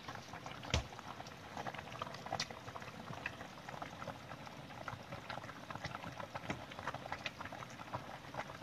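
A pot of chicken noodle soup boiling on the stove: a steady soft bubbling while a metal spoon skims fat off the surface, with one sharp clink a little under a second in.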